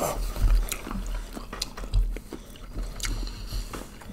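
Wet chewing and biting of sauced seafood-boil prawns, a run of irregular short clicks and smacks.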